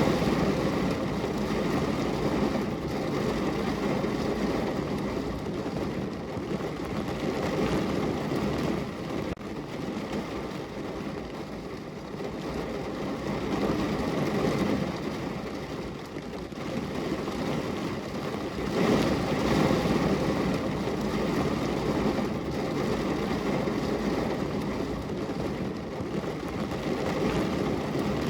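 Heavy rain drumming on a car's roof and windows, heard from inside the cabin as a dense, steady patter that swells and eases in waves.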